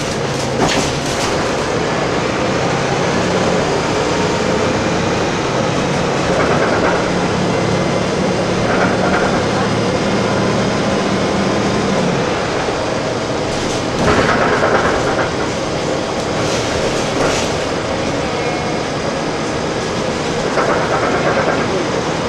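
Bus cabin noise on the move: a steady engine drone and road noise, with short rattles and knocks from the body and fittings. The engine's low hum drops away about halfway through.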